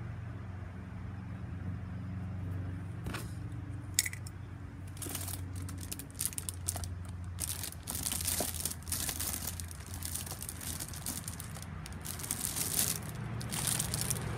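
Plastic packaging crinkling and rustling as it is handled, starting about five seconds in and running on in irregular bursts, after a sharp click about four seconds in. A steady low hum lies underneath.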